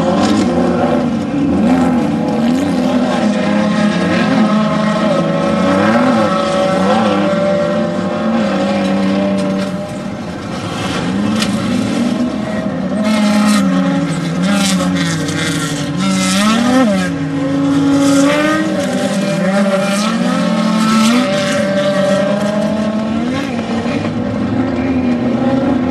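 Off-road desert race vehicles' engines running hard, several at once, their revs repeatedly climbing and dropping as they accelerate and lift off.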